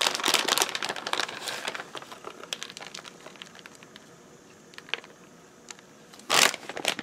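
Plastic crinkling and rustling as a bag of shredded cheese is handled and the cheese is sprinkled by gloved hands. The crinkling is dense for about two seconds, then dies down to scattered light ticks, with one brief louder rustle near the end.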